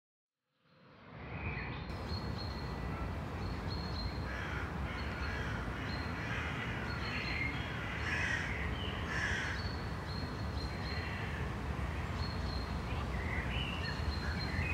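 Crows cawing again and again over a steady low rumble of travel noise from the moving camera. The sound fades in from silence within the first second.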